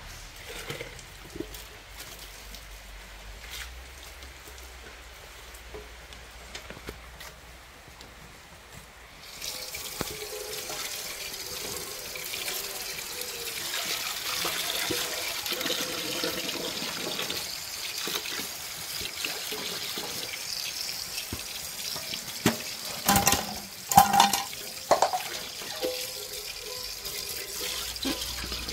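Dishes being rinsed by hand: light clicks of handling at first, then about nine seconds in water starts running steadily over them. Near the end come a few loud clinks as dishes knock together.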